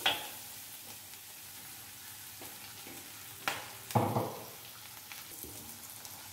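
Chopped garlic and dried prawns sizzling steadily in butter in a stainless steel wok. A metal spatula knocks and scrapes against the wok once at the start and twice more about three and a half seconds in.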